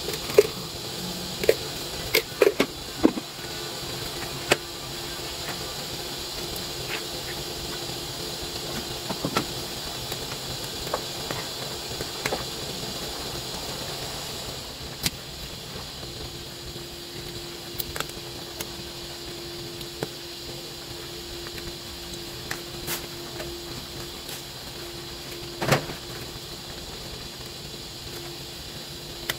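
A pot of soup at a rolling boil, with a steady hiss. Sharp metal clinks, likely from a ladle against the aluminium pot, come several times in the first few seconds and once or twice later. A faint steady hum joins about halfway through.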